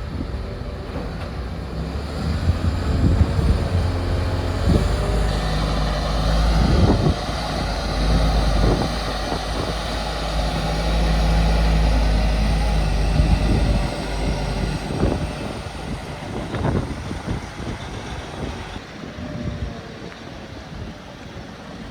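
Diesel engine of a Liebherr LTM 1750-9.1 nine-axle mobile crane running under load as the crane moves. The engine note is loudest for the first two-thirds, then fades over the last several seconds.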